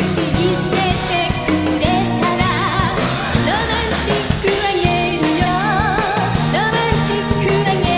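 A woman singing a pop song live into a microphone, her held notes wavering with vibrato, backed by a band with a drum kit and electric guitar.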